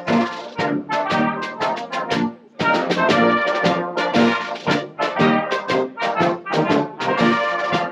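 A brass band playing, several brass instruments sounding together in short rhythmic phrases, with a brief break about two and a half seconds in.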